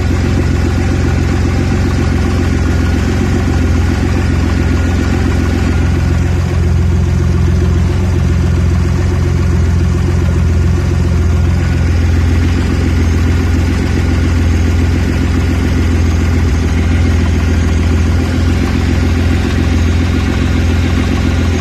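Audi A4 B7's 3.2-litre V6 engine idling steadily while cold, with the rough idle that keeps coming back when the engine is cold.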